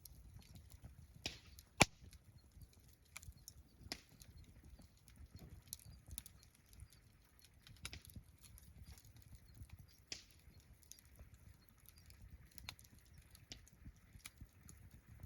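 Wood campfire crackling, with irregular sharp pops and snaps; the loudest pop comes about two seconds in.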